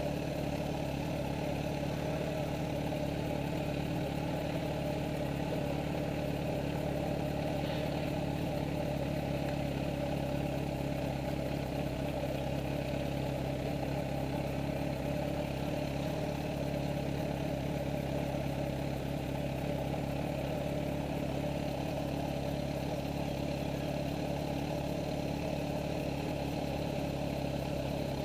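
Motorcycle engine idling steadily at an even, unchanging pitch, with no revving.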